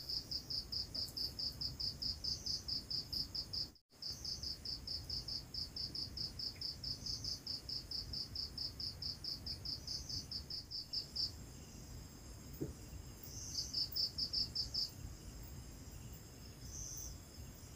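A cricket chirping in a fast, even pulse train, about four chirps a second. It breaks off briefly about four seconds in, stops about eleven seconds in, then gives one more short run a couple of seconds later.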